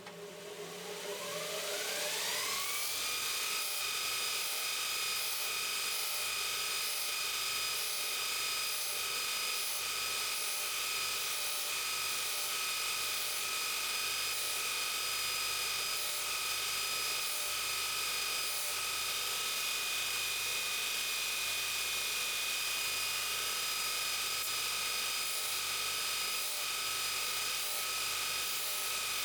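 Electric sanding wheel switched on, its motor whine rising in pitch over about two seconds as it spins up, then running at a steady, unchanging high whine.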